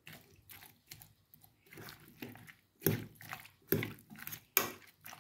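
Chopped vegetable salad with sour cream being stirred in a stainless steel pot: irregular wet squelches and knocks, louder and more frequent from about three seconds in.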